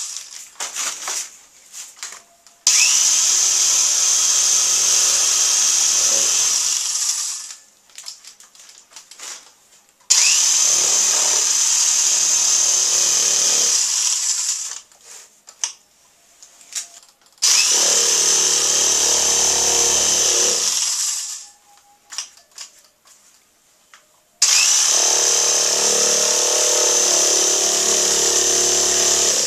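Handheld electric drill spinning paint onto a canvas, run in four bursts of about four seconds each. Each burst starts suddenly with a short rising whine as the motor spins up and tails off as it winds down, with faint clicks and taps in between.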